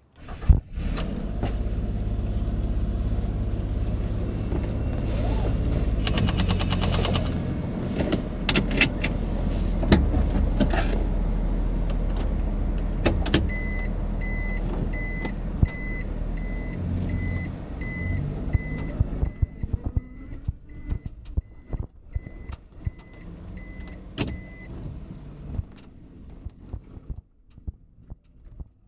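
Kei truck's small engine running steadily, with scattered clunks and knocks, and for about ten seconds through the second half a repeating electronic warning beep, about one and a half a second. The engine sound drops away around two thirds of the way in and fades near the end.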